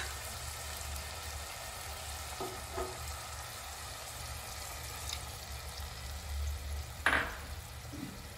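Vegetables and water in a hot kadai sizzling steadily, with a few faint knocks and one short, louder knock about seven seconds in.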